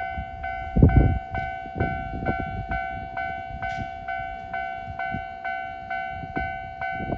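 Japanese railway level-crossing warning bell ringing, an electronic two-tone ding struck about twice a second, over the low clatter of a Keisei 3700-series train's wheels crossing, heaviest about a second in.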